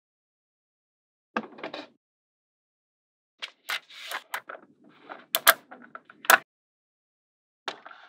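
Small magnetic balls clicking and clacking together as they snap into place. There is a short rattly cluster about a second and a half in, a run of sharp clicks from about three and a half to six and a half seconds, and one more click near the end.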